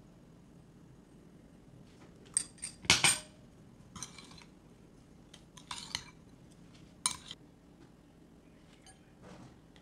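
Tableware clinking: a metal spoon, ceramic bowls and a glass mixing bowl knock together in a series of sharp clinks, the loudest cluster about three seconds in and a few lighter ones after.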